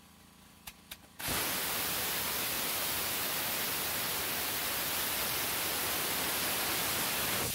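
Small aerospike rocket engine firing: two short clicks, then a steady, even rushing hiss of exhaust from about a second in.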